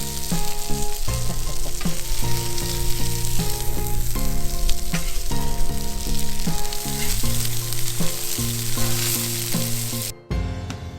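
Food sizzling hard on a hot camp griddle, a dense steady hiss, under background music; the sizzle cuts off suddenly about ten seconds in while the music continues.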